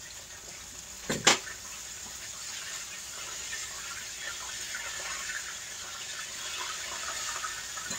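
Chicken wings frying in hot oil, a steady sizzle and crackle, with a couple of sharp knocks of a utensil against the pan about a second in.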